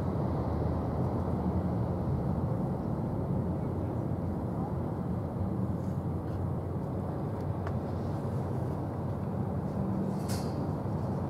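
Steady low outdoor rumble with a faint low hum running through it, and a brief hiss about ten seconds in.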